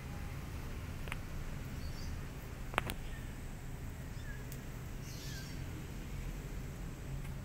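Outdoor background with a steady low rumble. There is a sharp click about a second in and a louder one just before the middle, and a few faint, short, high chirps.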